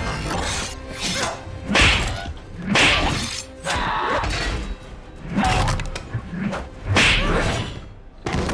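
Film action soundtrack: music under a run of loud crashes and impacts, about six heavy hits roughly a second apart.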